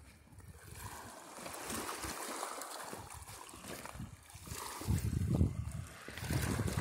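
Choppy lake water washing and lapping against a rocky shore, a steady hiss. About five seconds in, gusts of wind start buffeting the microphone with a low rumble.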